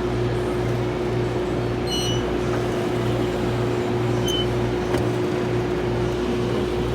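Steady machine hum with a constant tone and a low throb pulsing about twice a second, over a wash of background noise.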